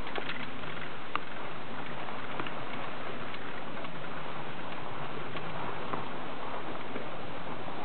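Steady hiss with scattered light clicks and crackles while riding up a platter ski lift, skis sliding along the snowy tow track.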